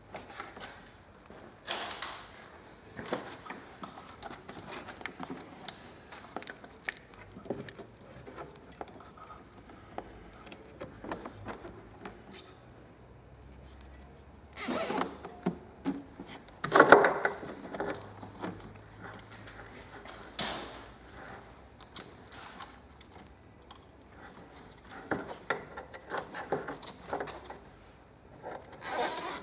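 Hands fitting plastic cable ties around a wiring harness in a car's engine bay: small clicks, rattles and rustles of handling, with a few short louder noises, the loudest a little past halfway.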